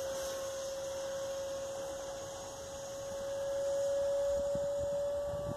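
Electric ducted fan of a foam-board Viggen RC jet (E-flite Viper 70 mm fan on 6S) whining steadily in flight, one tone creeping slowly up in pitch. It dips a little about halfway and swells again.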